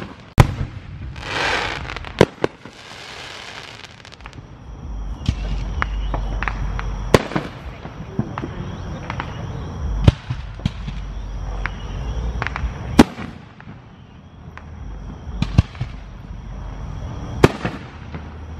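Aerial fireworks shells bursting overhead: sharp bangs every second or few seconds, with a hissing rush between the first few.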